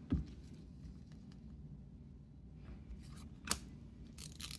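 Trading cards being handled and flipped through in the hands: a dull thump just after the start, a sharp card click about three and a half seconds in, and a brief papery rustle of cards sliding near the end.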